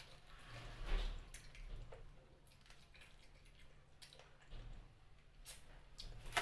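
Wet eating sounds of someone chewing and sucking on chicken feet in curry: soft squelches and mouth clicks, with a louder smack about a second in and another near the end.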